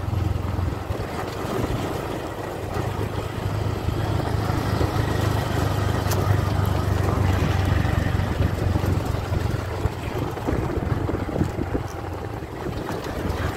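Auto-rickshaw engine running steadily as it drives over a rough dirt road, heard from inside the open cab, with scattered knocks and rattles from the bumpy ride and wind on the microphone.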